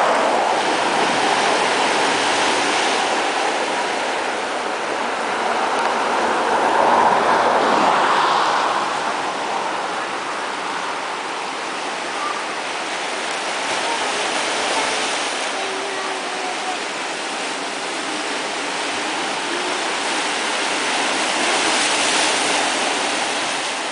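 Surf breaking and washing over rocks on a rocky shore: a steady rushing that swells about seven seconds in and again near the end.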